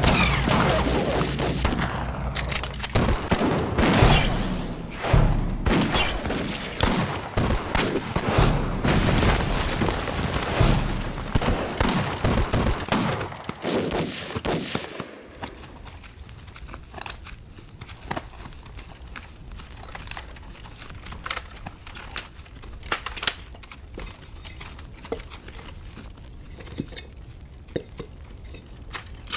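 Battle gunfire: dense volleys of rifle fire, heavy for about the first half, then thinning out to scattered single shots.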